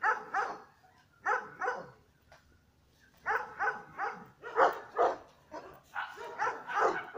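Dog barking: a few short barks in the first two seconds, then a quicker run of barks from about three seconds in.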